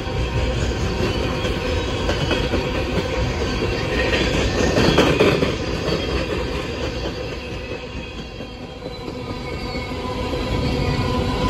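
Union Pacific coal train's hopper cars rolling past, a steady rumble of wheels on rail with clacking over the joints. Faint steady squealing tones from the wheels ride over it, loudest about five seconds in.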